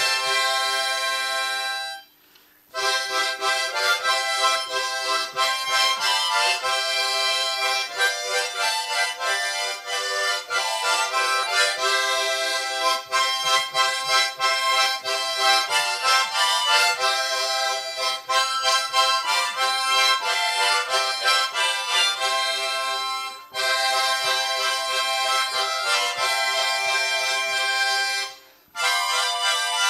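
An ensemble of harmonicas playing a tune together in full chords. The music stops for a moment about two seconds in, dips briefly again later, and pauses once more near the end.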